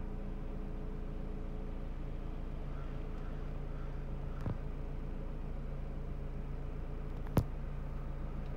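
Steady low machine hum holding a few even low tones, with a faint tap about four and a half seconds in and a short, sharp click a little after seven seconds.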